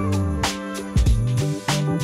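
Background music with a steady drum beat and a moving bass line under held chords.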